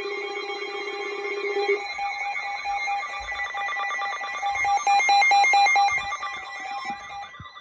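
Several emergency alert devices sounding their alarms at once, signalling an incoming weather warning: overlapping steady tones with warbling, rapid beeping alarm tones. A lower tone stops about two seconds in, the beeping is loudest around five to six seconds in, and the alarms cut off just before the end.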